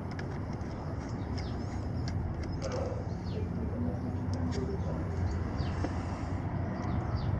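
Outdoor background: a steady low rumble with birds chirping now and then, and a few faint clicks.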